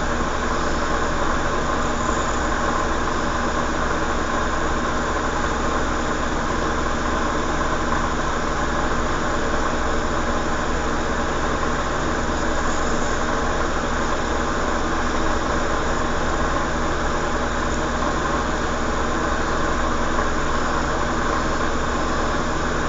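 A steady, unchanging mechanical hum with hiss, several fixed tones over a low drone, as of a motor running continuously.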